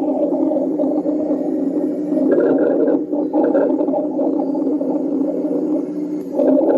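Auscultation recording of rhonchi: a continuous, low-pitched lung sound like a wheeze but lower in pitch, a sign of secretions or narrowing in the larger airways.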